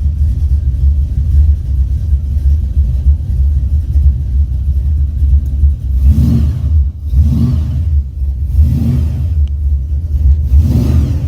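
Car engine running with a deep, steady low rumble; from about six seconds in, the sound swells briefly four times.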